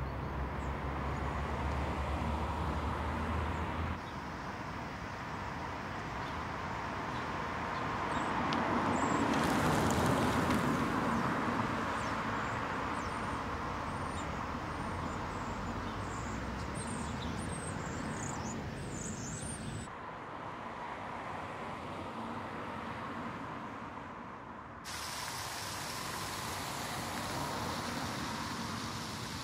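Outdoor street sound cut together from several shots: a Volkswagen e-Golf electric car drives past, swelling and fading about ten seconds in, with birds chirping now and then in the middle. In the last few seconds a fountain splashes.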